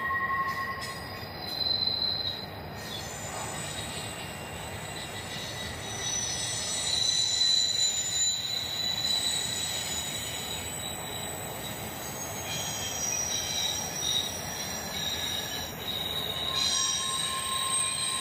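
Intermodal freight train of container and trailer cars rolling past, the wheels squealing in several high-pitched tones that shift and fade in and out over the steady rumble of the cars.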